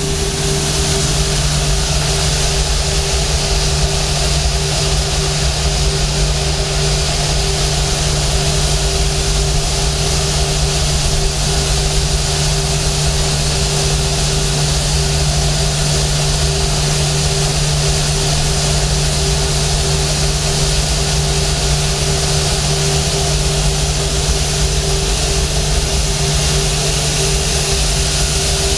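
Airbus A340's four turbofan engines running at low taxi thrust as the airliner rolls past: a loud, steady hiss with two steady low humming tones that hold unchanged throughout.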